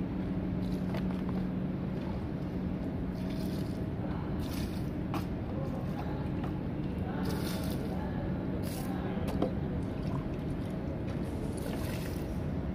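Water splashing and dripping onto chipped concrete as the surface is wetted before patching, in irregular splashes. A steady low hum runs underneath.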